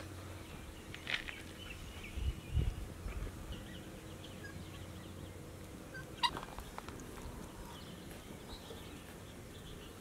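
Outdoor ambience of birds calling, short scattered chirps and calls over a faint steady background, with a few soft knocks about a second in, around two and a half seconds in, and just after six seconds.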